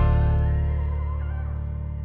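Background music: a deep bass note struck at the start and slowly fading, with a melody line wandering above it.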